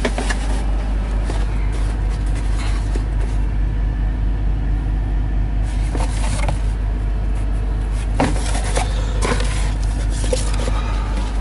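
Semi-truck's diesel engine idling steadily with a low drone, while a cardboard box is handled, opened and rustled in short bursts several times.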